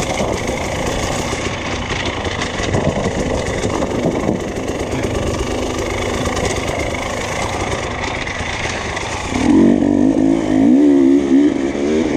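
Enduro motorcycle engine running under throttle along a dirt trail, mixed with wind and rattle. About nine and a half seconds in, the engine note gets much louder and wavers up and down as it is revved hard.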